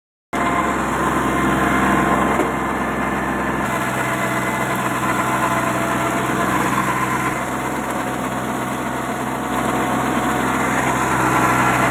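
Kubota 21 hp mini tractor's diesel engine running steadily under load, driving a rotavator at 540 PTO rpm as it tills the soil. The low part of the sound shifts slightly about four seconds in.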